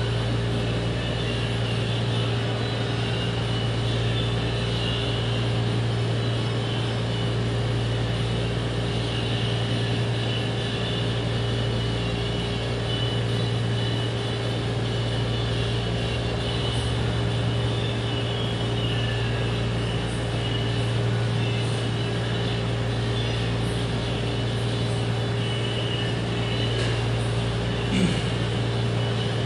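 Steady mechanical drone of room machinery, a low hum with a faint constant whine over a hiss. One short knock comes near the end.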